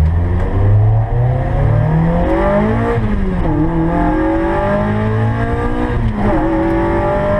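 ND Mazda MX-5 Miata's four-cylinder engine accelerating hard through the gears, its pitch climbing steadily and dropping sharply at two upshifts, about three and six seconds in.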